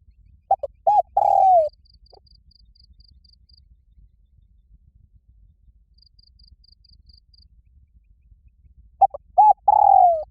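Spotted dove cooing loudly: two short coos, then a long falling coo, the phrase repeated near the end. Between the phrases, faint rapid high-pitched ticking comes in two runs of a second or two.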